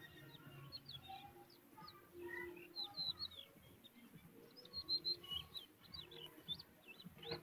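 Small birds chirping: many short, high chirps, quick and irregular, with a louder cluster about five seconds in.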